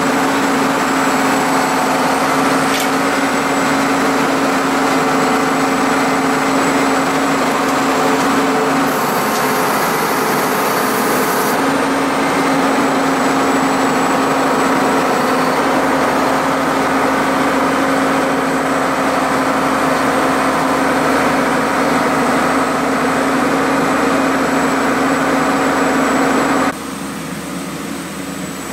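Horizontal directional drilling rig running steadily under power: an engine hum with a faint high whine above it. Near the end the sound drops abruptly to a lower level.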